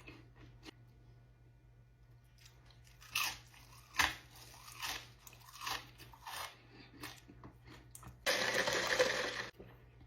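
Close-miked eating: a person biting and chewing crunchy fried food in a run of crisp crunches, with a loud, harsh noise lasting about a second near the end.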